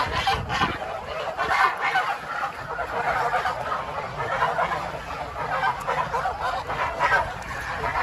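A flock of domestic geese honking continuously, many calls overlapping.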